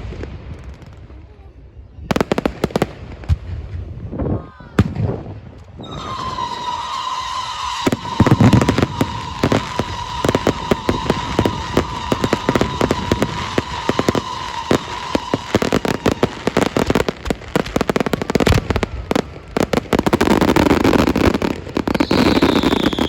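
Fireworks bursting with sharp bangs, then dense rapid crackling. A steady high whistle runs through the middle for about ten seconds, and a falling whistle comes near the end.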